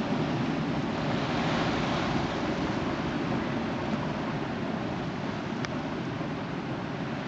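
Sea surf: waves breaking and washing in as a steady rush of noise.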